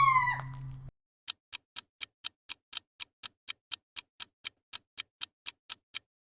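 A gibbon's rising whooping call ends about a second in, followed by a clock-style countdown ticking evenly at about four ticks a second for nearly five seconds.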